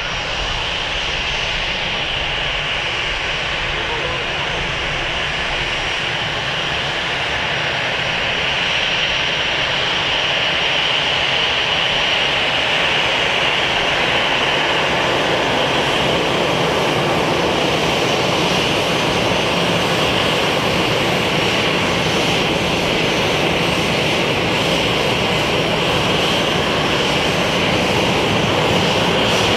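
Airbus A320's twin jet engines running at taxi power: a steady jet whine over a rumble, growing louder about a third of the way in as the airliner taxis closer.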